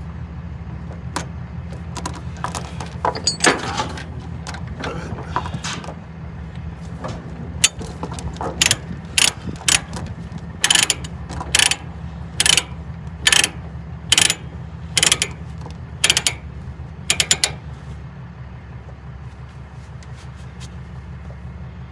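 Ratchet binder being worked to tighten a load-securement chain: a run of sharp ratchet clicks, about one a second for some ten seconds, after lighter clinks of chain being handled. A steady low hum runs underneath.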